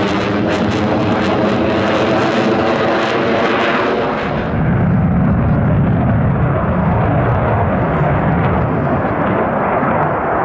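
Saab JAS 39 Gripen fighter's jet engine running loud overhead, a continuous rushing roar whose tone sweeps and phases as the aircraft moves. A little over four seconds in the sound turns duller and deeper, the high hiss dropping away, as the jet is further off.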